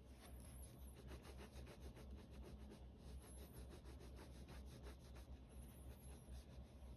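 Pen hatching on sketchbook paper: faint, quick, scratchy strokes in close succession.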